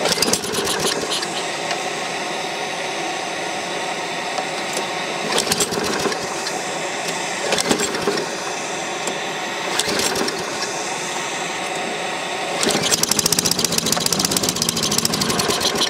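Small single-cylinder lawn mower engine being pull-started on vegetable-oil vapour, turning over in short runs of rapid pulses with a longer, louder run near the end, as it tries to catch. A steady hiss runs underneath.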